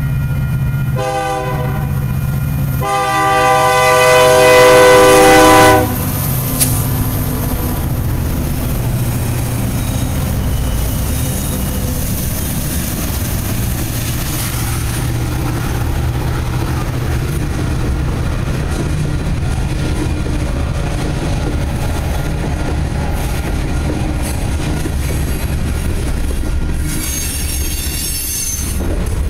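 Lead locomotive horn of a Union Pacific freight train (EMD SD70M UP 4979) sounds a short blast, then a longer, louder blast that cuts off suddenly. The steady noise of the passing locomotives and grain cars follows, with a brief high squeal near the end.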